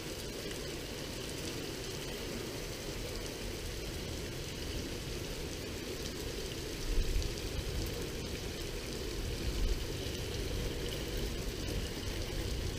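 Heavy thunderstorm downpour, a steady rush of rain. Two brief low thumps come about seven and nine and a half seconds in.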